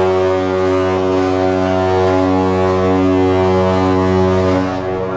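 Cruise ship's horn blowing one long, deep steady blast that cuts off near the end.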